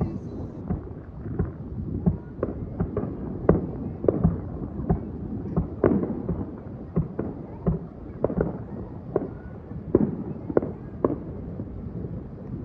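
Aerial fireworks going off in quick, irregular succession: many sharp bangs and crackles, some ringing on briefly, over a steady low rumble.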